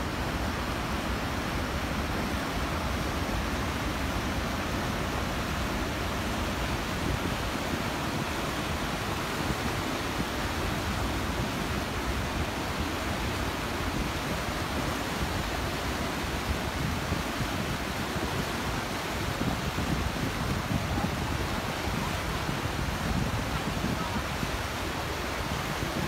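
Steady rush of water from the waterfall and river rapids, with a low rumble of wind on the microphone.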